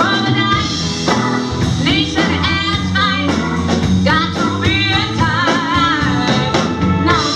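Live band playing a rock-blues song, with a woman singing long notes with vibrato over a steady bass line and regular drum and cymbal hits.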